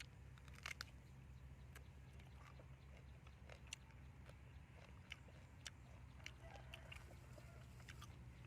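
Faint eating sounds: scattered soft clicks and crunches of someone biting and chewing, over a steady low hum.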